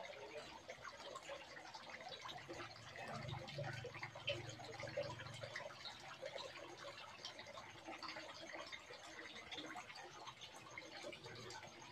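Water trickling and splashing steadily into a small koi pond, a dense patter of tiny splashes.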